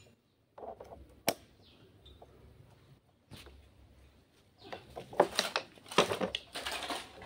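Pistons and connecting rods from a minibus engine clinking and clanking as they are handled and shifted on a steel drum lid: one sharp click about a second in, then a quick run of metal clatter over the last couple of seconds.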